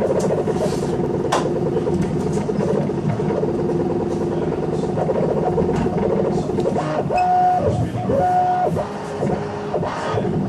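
3D printer's stepper motors whining as the print head moves, the tones jumping between pitches with each change of move, over the whir of the printer's mechanics.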